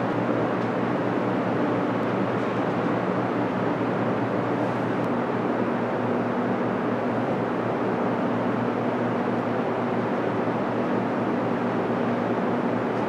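A steady mechanical hum with hiss, carrying a few low steady tones and no distinct events.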